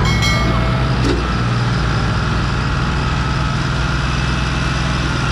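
Tractor diesel engines running hard under heavy load, trying to pull a sugarcane-loaded trolley stuck in soft ground, with a steady low drone. A brief knock about a second in.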